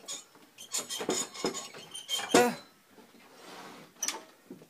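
A door with a wire rack hung on it being handled, the metal rack rattling and clinking against the wood, with a few sharp knocks and a louder knock about halfway through.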